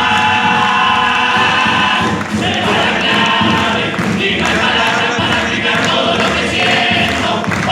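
Many voices singing together loudly in a dense, continuous mass of sound.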